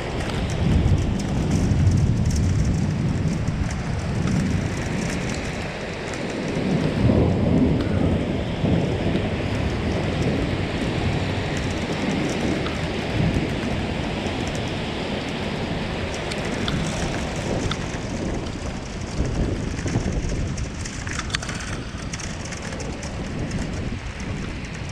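Thunder rolling in long low rumbles, swelling about a second in and again around seven seconds, over a steady hiss of rain.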